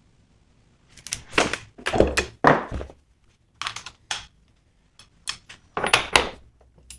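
A string of irregular clunks and knocks starting about a second in: tools and hardware being handled and set down on a workbench.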